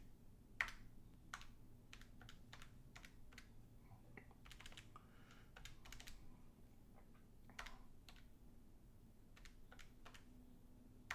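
Calculator keys being pressed: faint, irregular clicks, a dozen or so, with uneven gaps between them, as a subtraction is entered again after a mistake.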